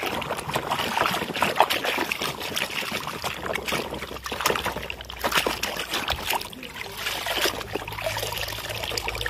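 Hand swishing and scrubbing a plastic toy truck in a tub of foamy soapy water: irregular sloshing and splashing. Near the end the toy is lifted out and water drips off it.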